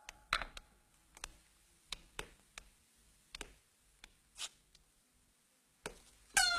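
A series of light, irregular clicks and taps, about a dozen over six seconds. Near the end a sharper hit sets off a steady ringing tone.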